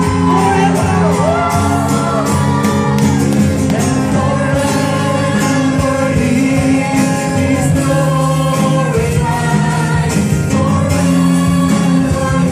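Live praise-and-worship music: several singers on microphones singing over a band with guitars and a steady beat.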